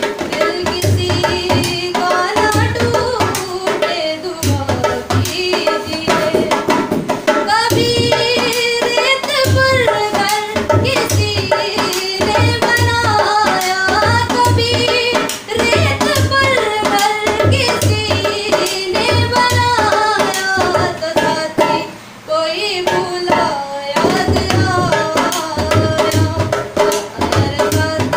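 A woman singing a Hindi song to a dholak keeping a steady beat. Voice and drum drop out briefly about 22 seconds in.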